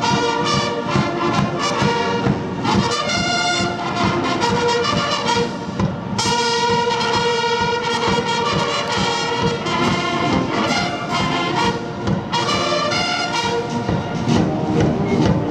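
Massed military band of brass and drums playing a march as it marches: cornets, bugles, trombones and euphoniums sound held notes and phrases over a steady drum beat.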